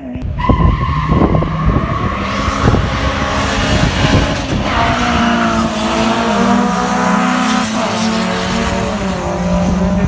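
Cars' engines running hard at high revs on a race track at full throttle, loud and continuous, mixed with tyre noise. The sound comes in suddenly and carries several engine notes that shift in pitch.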